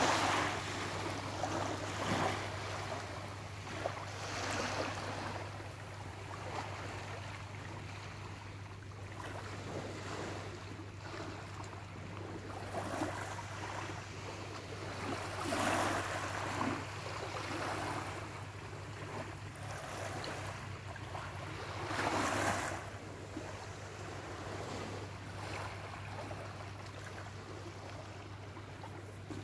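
Small waves lapping and washing up onto a sandy beach, the wash swelling and fading several times, several seconds apart, over a steady low hum.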